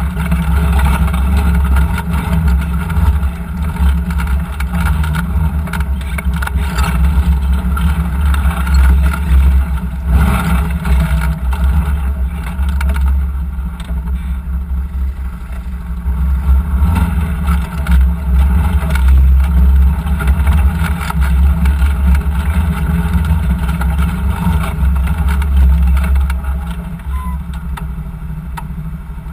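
Side-by-side UTV's engine running with a steady low rumble as it crawls over a rocky creek bed, with scattered knocks and clatter from the rough ground. It eases off near the end as the machine slows behind the ATVs ahead.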